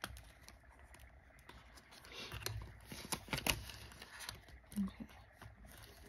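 Rustling and crinkling of a clear plastic zip pouch in a ring binder and of Canadian polymer banknotes being handled, with a burst of sharp clicks and crackles about two to four seconds in as the pouch is opened.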